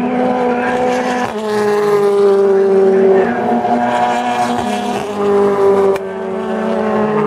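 British Touring Car Championship race cars' 2.0-litre turbocharged engines running hard through a corner. The engine note holds steady and steps suddenly in pitch several times.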